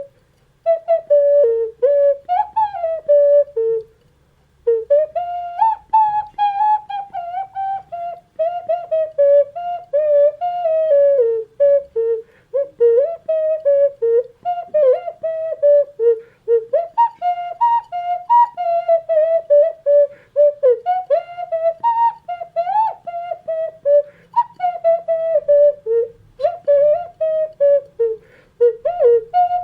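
Solo ceramic ocarina playing a melody in a pure, flute-like tone, in many short notes with slides between them and a short break about four seconds in.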